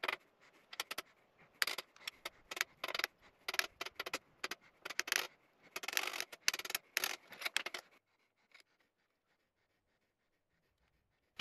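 Small metal pen-turning bushings and the turned wooden pen blank being worked off a lathe mandrel by hand: scattered light clicks, scrapes and metallic clinks as the parts slide off and are set down on the steel lathe bed, stopping about eight seconds in.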